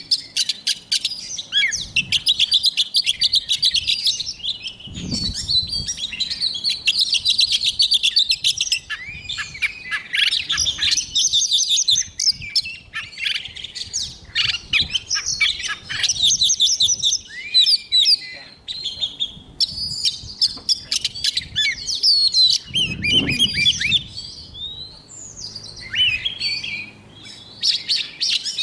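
Oriental magpie-robin singing a long, varied song of rapid trills, chattering phrases and clear sweeping whistles, with short pauses between phrases. Two low thumps come through under the song, about five seconds in and again later on.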